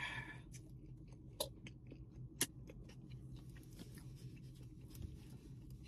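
Faint chewing of a sandwich, with soft mouth clicks and two sharper clicks about one and a half and two and a half seconds in, over a low steady hum inside a car cabin.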